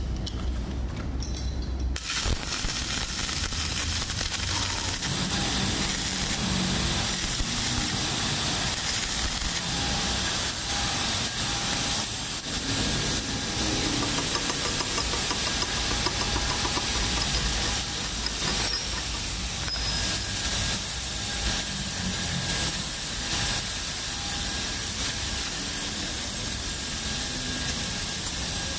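Gas torch flame running steadily with a hiss and a low rumble, preheating a cast-iron turbo manifold before welding.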